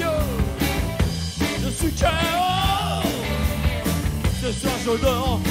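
Live rock band playing: electric guitars, bass guitar and drums. A lead line bends and wavers in pitch over a steady, driving low end.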